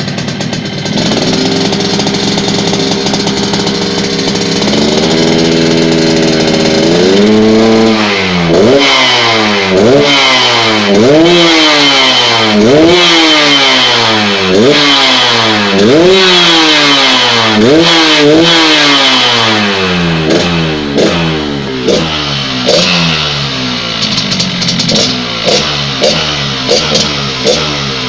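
Yamaha RX-King's two-stroke single-cylinder engine idling steadily, then revved in repeated blips that rise and fall about every second and a half to two seconds. Near the end come shorter, quicker throttle jabs. This is the exhaust note its owners call "ngorok" (snoring).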